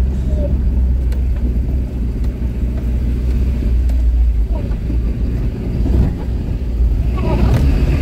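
Car driving, heard from inside the cabin: a steady low engine and road rumble.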